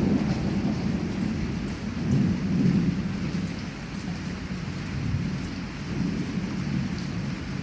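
Heavy rain falling steadily, with scattered drops ticking, under the low rumble of rolling thunder. The rumble swells about two seconds in and then eases off.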